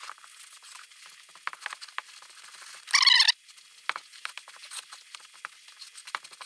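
Wooden spoon stirring flour and water into a shaggy dough in a plastic mixing bowl: soft scraping with irregular light taps of the spoon against the bowl. About three seconds in there is one short, loud, high-pitched sound.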